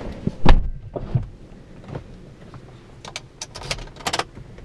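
BMW M6 (E63) door shutting with one loud thud about half a second in, heard from inside the cabin. A few faint clicks and knocks follow as the driver settles in, with a quick run of clicks near the end.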